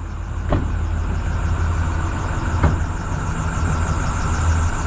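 Snowplow truck's engine idling steadily while warming up, with two short knocks, one about half a second in and a louder one about two and a half seconds in.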